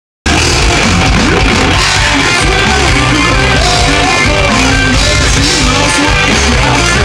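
Live rock band playing loud, with electric guitars to the fore. The sound cuts in abruptly a moment after the start, following a brief dropout in the recording.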